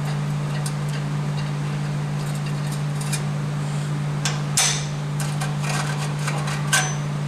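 Welder running with a steady low hum, with scattered sharp metallic clicks and taps as the exhaust pipe is worked.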